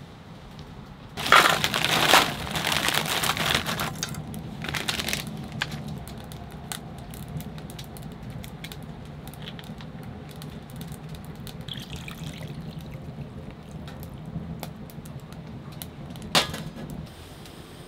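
Water poured into a metal cooking pot for about two seconds, with a shorter splash soon after. Then a low steady background, broken by one sharp knock near the end.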